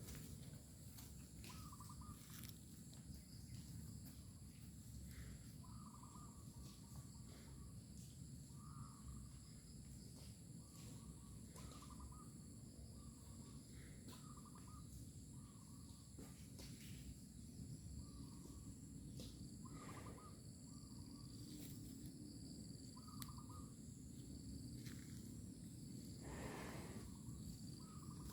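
Faint outdoor ambience: a bird gives short, repeated chirps every second or two over a steady, high insect drone, with a low rumble underneath and a few light clicks.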